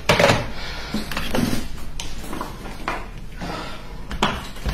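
A desk telephone handset clacked down onto its cradle, the loudest knock, right at the start, then a few lighter knocks and clicks of things handled on a wooden desk.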